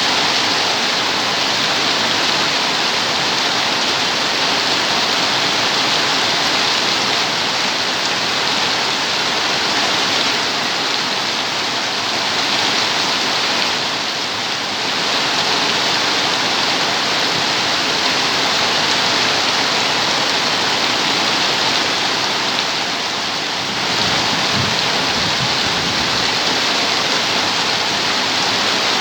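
Steady rain falling, an even hiss of water without let-up, easing slightly twice for a moment.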